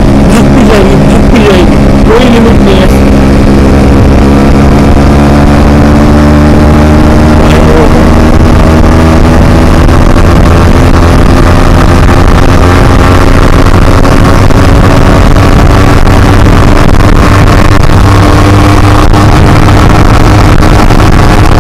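Yamaha RX100's two-stroke single-cylinder engine running under way on the road, a steady droning note whose pitch climbs slowly through the second half as the bike picks up speed.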